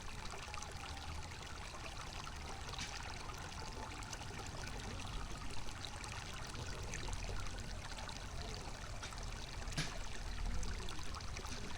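Running water, a small waterfall or fast stream, pouring and splashing steadily, with a few brief louder splashes.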